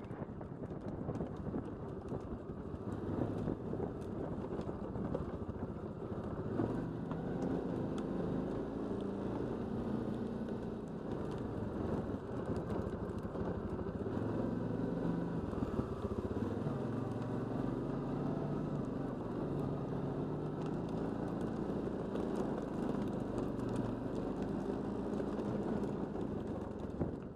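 ATV engine running at low, varying revs as it descends a rough dirt track, its pitch wandering up and down.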